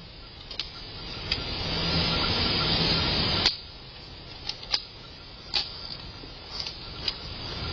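Airsoft guns firing single shots: about eight short sharp pops at uneven intervals, over a steady rushing noise that drops away suddenly about halfway through.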